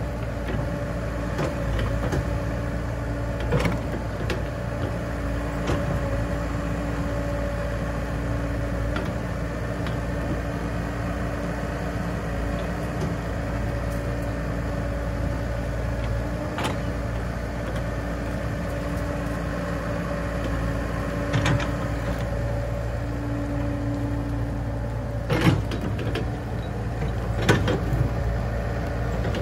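Komatsu mini excavator's diesel engine running steadily with a steady whine, while the bucket digs soil and rubble, giving occasional sharp knocks; the loudest two come near the end.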